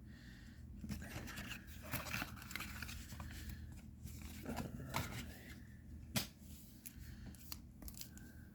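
Trading-card booster pack wrapper being torn open and the cards handled: faint tearing and rustling broken by a few sharp clicks.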